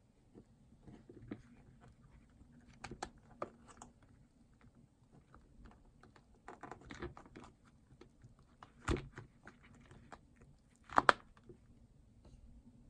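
Light clicks, taps and rustling as small objects are handled on a work surface, with a sharper knock about nine seconds in and the loudest, a quick double click, near the end.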